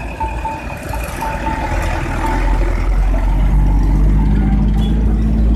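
Engine rumble of a truck and a motorcycle passing close by, building about halfway through and loudest near the end.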